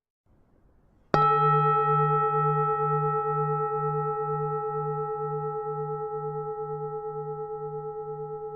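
Buddhist temple bell struck once about a second in, then ringing on with a slow fade. Its low hum wavers about three times a second under several steady higher tones.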